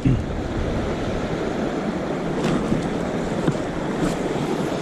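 Steady rushing noise of wind over the microphone and moving river water, with no distinct events standing out.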